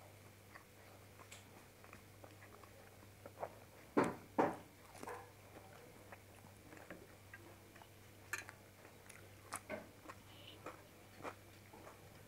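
Close-up chewing and mouth sounds of someone eating fried bhature bread and curry by hand: scattered wet clicks and smacks, with two louder ones about four seconds in.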